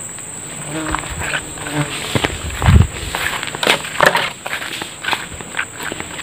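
Insects droning with one steady high-pitched tone, over footsteps crackling on dry leaf litter. A low thump about three seconds in is the loudest sound.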